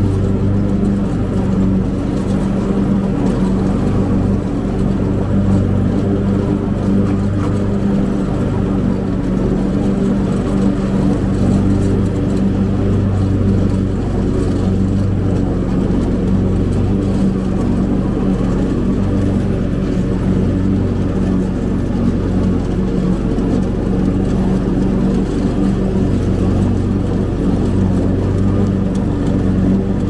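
Cub Cadet zero-turn mower engine running at a steady speed, a constant even-pitched hum.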